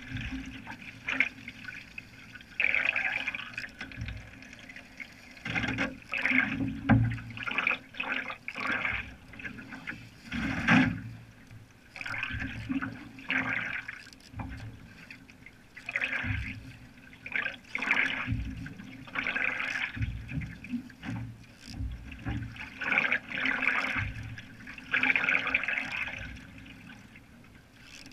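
Canoe paddle strokes in lake water: a single-bladed paddle dipping and pulling, with a splash about once every second or so, and water washing along the hull between strokes.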